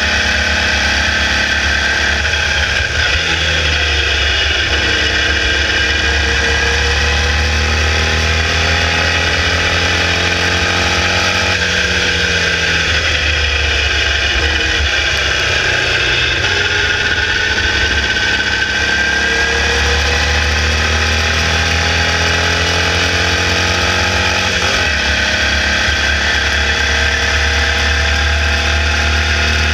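Air-cooled 1200cc Volkswagen flat-four of a Formula Vee racing car at full throttle, heard from onboard. Its revs climb steadily and then drop sharply around three, twelve and twenty-five seconds in, as it changes gear and slows for a corner.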